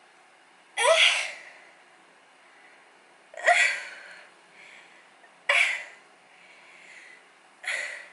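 A woman's voice making four short, sharp breathy sounds, each rising quickly in pitch, about two seconds apart.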